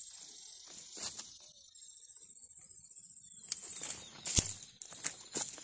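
Rustling and several sharp knocks from a hand-held phone being handled, the loudest about three-quarters through. Under them is a steady high-pitched trill, the kind insects make in summer woods, which drops out about midway.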